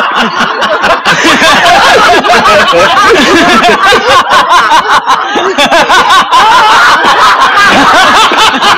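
Many men laughing loudly together, their voices overlapping without a break.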